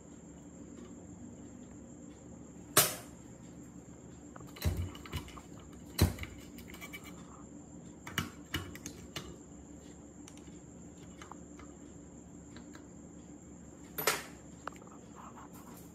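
Hand work on the old water pump's parts: a few scattered, sharp knocks and clicks, six or so with short gaps between them, over a steady high-pitched chirring of crickets.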